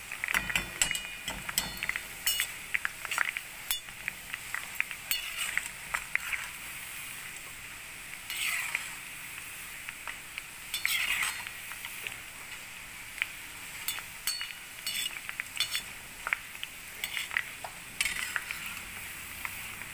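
Gathia (gram-flour noodle strands) deep-frying in a kadhai of hot oil, sizzling steadily. Frequent sharp clicks and a few scrapes come from a perforated metal ladle (jhara) stirring and turning them over in the oil.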